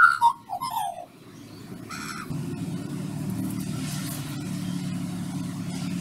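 Australian magpies calling in short warbling notes for about the first second, with one more brief call at about two seconds. A steady low vehicle-engine rumble then sets in and runs to the end.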